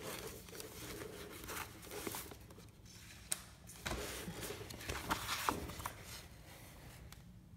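Paper and a manila folder rustling and sliding as they are handled, with a few sharp crackles.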